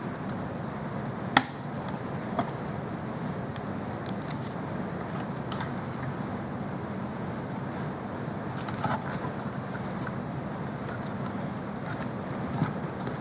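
Small hardware being handled during computer assembly: a few sharp clicks and light knocks over a steady background hiss, the loudest about a second and a half in.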